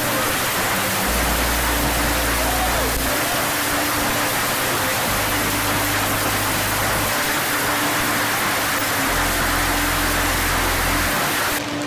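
Heavy hail and rain falling: a dense, steady hiss of hailstones pelting the ground, which thins abruptly just before the end.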